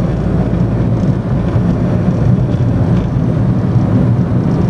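Car driving at low speed: a steady engine hum over road and wind rumble.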